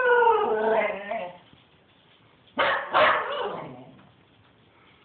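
Cocker spaniel howling, the howl falling in pitch and dying away about a second in; after a short pause it gives two sharp barks that trail off into a brief falling howl.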